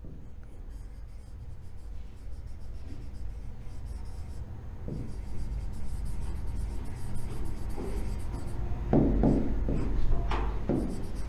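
Stylus scratching and tapping on a touchscreen whiteboard as a word is written out by hand, over a low steady hum. A few louder short sounds come near the end.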